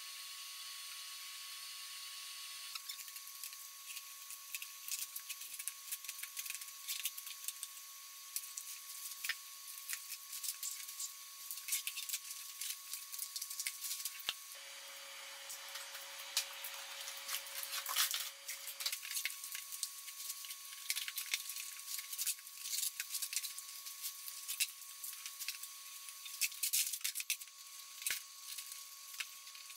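Waterproofing sheet membrane being pulled up and torn away from plywood: rapid, irregular crackling and tearing, starting about three seconds in.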